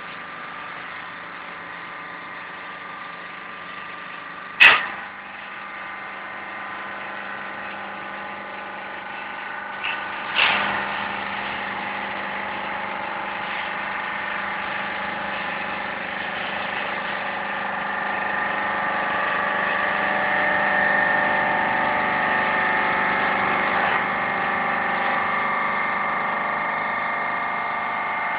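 Paper baling press machine running: a steady mechanical hum with several steady tones, louder in the second half. Two sharp knocks, about 5 s and 10 s in.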